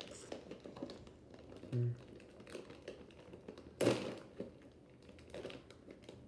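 A person chewing crunchy baked corn and potato snack sticks (hot fries) close to the microphone: scattered small crisp crunches, one louder crunch a little past halfway, and a brief closed-mouth hum about two seconds in.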